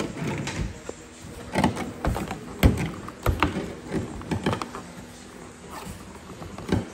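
About a dozen irregular knocks and clicks from a BMW E36 convertible top's frame and latches being pushed and worked by hand while it is realigned to lock.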